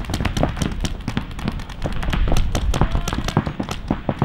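Paintball markers firing rapidly, a dense, irregular string of sharp pops, many a second.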